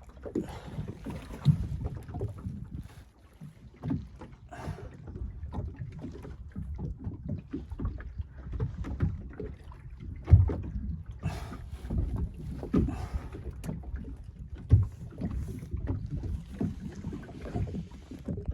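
Small aluminium boat (tinnie) rocking on the water: irregular low thumps and slaps against the hull, with a few sharper knocks of gear in the boat and wind on the microphone.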